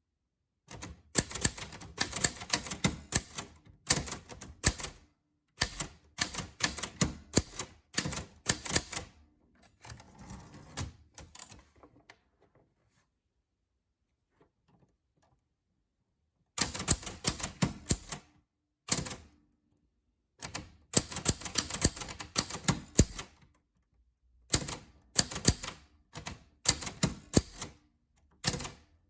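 Typewriter keys clacking in quick runs, with short pauses between the runs. About ten seconds in, the clacking gives way to a softer, quieter stretch, then a few seconds of quiet before the typing starts again.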